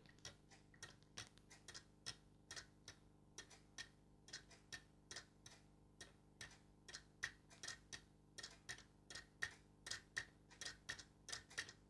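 Plastic escapement of an Academy da Vinci Clock model kit ticking faintly and evenly, about three ticks a second, as the wound-up weight basket drives the gear train.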